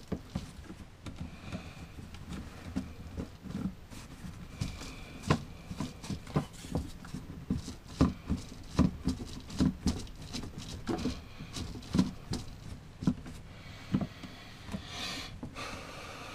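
Hand-work noises on RV water plumbing: irregular clicks, taps and knocks as hands handle the water pump's hoses and fittings in a cramped compartment, with a short rustling hiss near the end.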